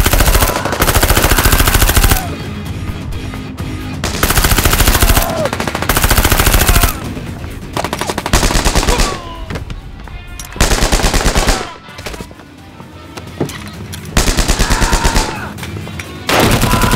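Automatic-gunfire sound effects in repeated rapid bursts, each about a second long with short gaps between, over background music.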